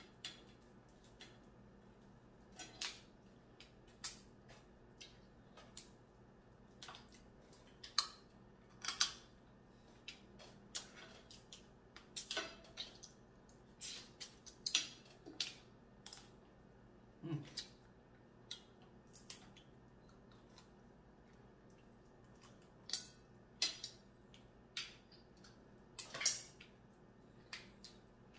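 Blue crab claws and shell being cracked open: irregular sharp cracks and clicks, sometimes two or three close together, with short pauses between.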